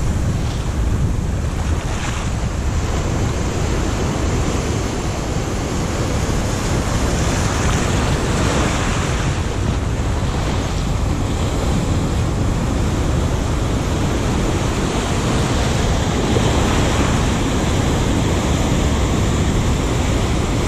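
Ocean surf breaking and washing over shoreline rocks, a loud, steady rush of water, with wind buffeting the microphone.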